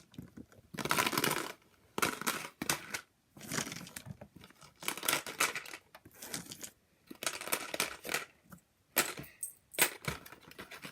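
Small toy figures clicking and clattering in irregular bursts as they are put back into their container.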